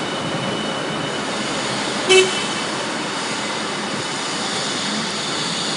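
Steady factory noise, with one short vehicle-horn beep about two seconds in.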